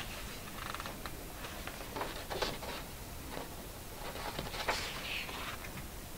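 Hands brushing and sliding over the paper pages of a colouring book in a few short rustles, then a page being turned over about four seconds in.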